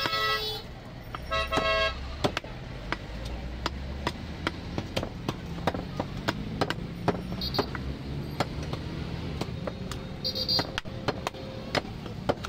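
Cleaver and knife strokes on a wooden chopping block as goat meat is cut, a string of irregular sharp knocks. A vehicle horn toots at the very start and again about a second and a half in, over low traffic rumble.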